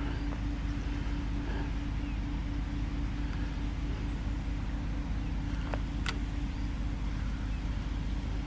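Steady low hum with a constant tone, and a sharp click about six seconds in.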